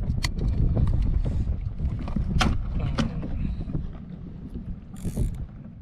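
Wind buffeting the microphone, with a few sharp clicks as the plastic buckle of a dry bag is snapped shut. A short hiss near the end.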